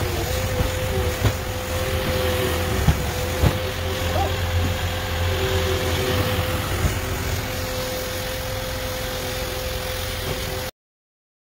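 Cat 246D skid steer's diesel engine running steadily, with a constant whine over the rumble and a few sharp knocks in the first few seconds. The sound stops abruptly near the end.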